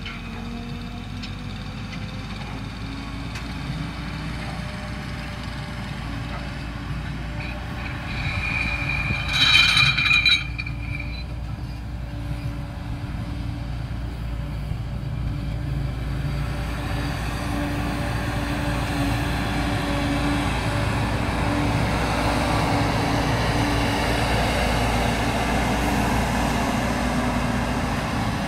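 Grimme Rexor self-propelled sugar beet harvester running steadily in the field as it lifts beet, its engine and working gear growing louder as it draws closer. A brief high-pitched squeal sounds about nine seconds in.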